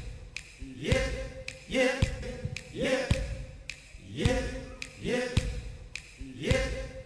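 A man's high voice on a live stage singing a short 'yep' over and over, about once a second. Each note slides up and then holds briefly, with low drum thumps under it, and the same snippet repeats in an even loop.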